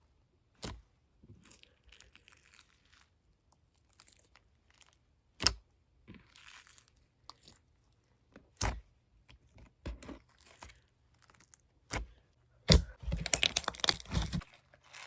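Scattered sharp clicks and knocks of things being handled, spaced a second or more apart, with a burst of rapid crackling near the end.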